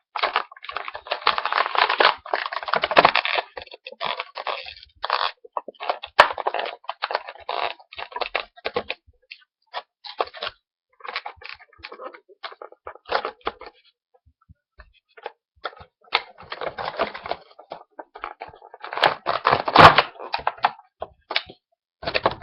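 Plastic action-figure packaging being worked apart by hand: irregular crackling and clattering in bursts, heaviest near the start and again about twenty seconds in, with a brief lull in between.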